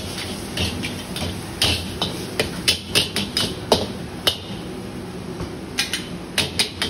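Metal wok ladle and spatula clanking and scraping against a wok while stir-frying noodles: irregular sharp clangs in quick clusters, over a steady background rush.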